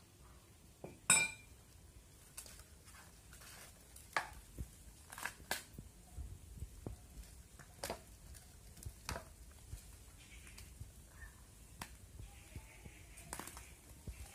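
A raw chicken being cut up by hand, its pieces knocking into a steel plate: scattered clicks and knocks, the loudest about a second in with a short metallic ring.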